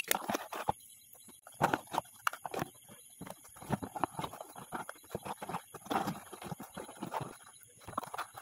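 Cardboard box flaps rustling and crinkling while plastic tableware is lifted out, pieces of it clicking and knocking against each other and the box in quick irregular taps.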